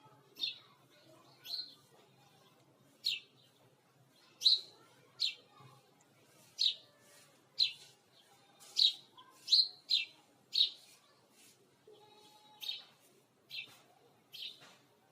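House sparrow chirping: short, sharp single chirps about once a second, irregularly spaced, with a quick pair or triple around the middle.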